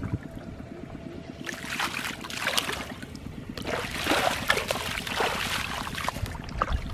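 Shallow muddy floodwater splashing and sloshing as bare feet wade through it, in two spells of splashing, about a second and a half in and again about four seconds in.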